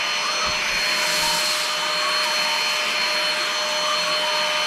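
Tower VL70 cordless stick vacuum running on high power, a steady whine of several high tones over a rushing hiss, as it sucks up rice and loose tea.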